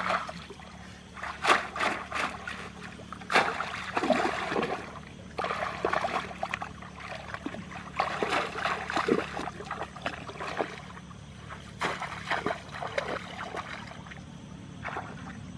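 Shallow muddy water splashing and sloshing in irregular bursts every second or two, as people wade through it and dip a woven basket fish trap.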